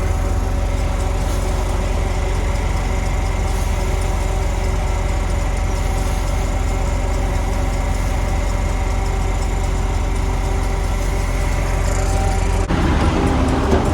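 Heavy diesel engine running steadily at a constant speed, with a deep rumble; the sound shifts abruptly near the end.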